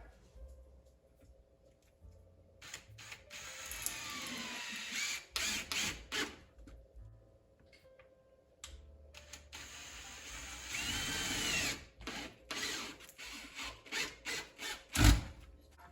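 Power drill running in two bursts of a few seconds each, its pitch rising and falling as the speed changes, while driving hardware on a bike rack being assembled. Then a string of clicks and knocks, with one loud knock near the end.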